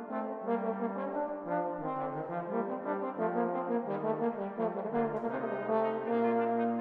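Brass quartet of two trumpets and two trombones playing together: a run of short, detached notes, then a long held chord near the end.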